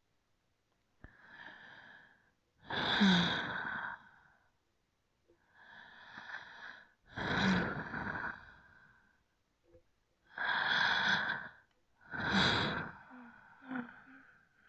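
A person breathing slowly and deeply: about seven breaths in and out, each a rush of air lasting a second or two, with short pauses between them. The louder breaths carry a slight wheezy note.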